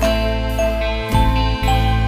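Ringtone music: a bell-like melody over a steady bass, a new note about every half second.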